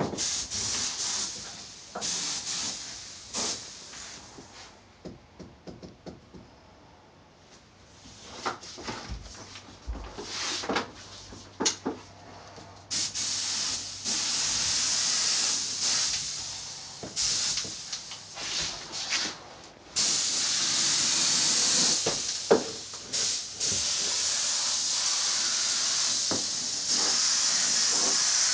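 Paint spray gun hissing as its trigger is pulled and released: short bursts at first, then long continuous passes, with a few knocks in between.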